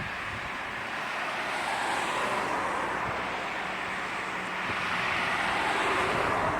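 583 series electric train approaching on the line, its running noise swelling steadily as it nears, just before the wheels' rhythmic clatter over the rail joints begins.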